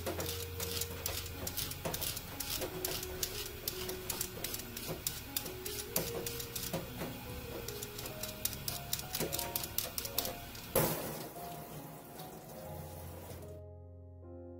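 A vegetable peeler scraping the bumps off a cucumber in quick repeated strokes, with a short louder rush of noise about eleven seconds in, over background music.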